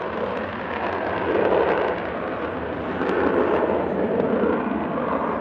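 Panavia Tornado IDS's twin RB199 turbofans at full afterburner on the takeoff roll: a loud, steady jet noise full of crackling.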